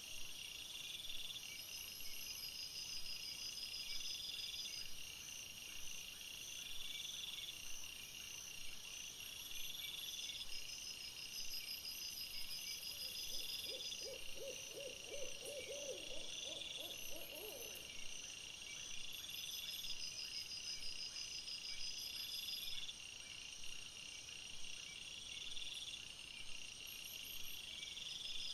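A night chorus of chirping calls repeating every couple of seconds, with an owl's quavering hoot lasting about five seconds halfway through.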